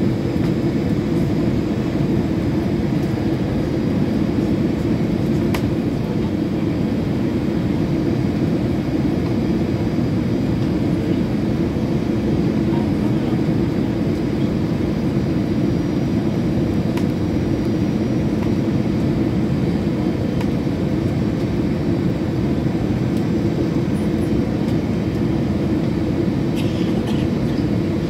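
Steady cabin noise of an Airbus A320-214 on final approach: an unbroken low rumble of engines and airflow.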